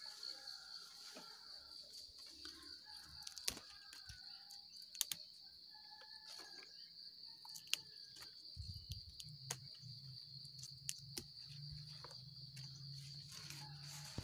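Insects chirring in a steady, high-pitched trill, with scattered sharp clicks and rustles from a hand handling papaya stems and leaves.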